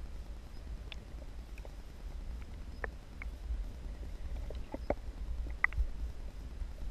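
Underwater sound heard through a GoPro's waterproof housing: a steady, muffled low rumble of moving water with scattered sharp clicks and ticks, the strongest a little before the end.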